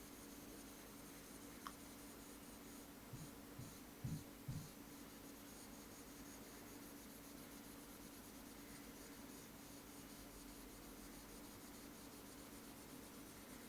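Faint scratching of a pen colouring on an interactive whiteboard, with a few soft knocks of the pen against the board a little after three seconds in, over a low steady hum.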